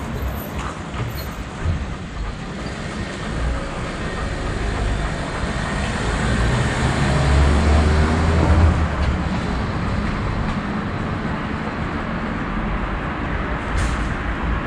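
Street traffic with a large vehicle passing close by, its deep rumble building to a peak about eight seconds in and then fading.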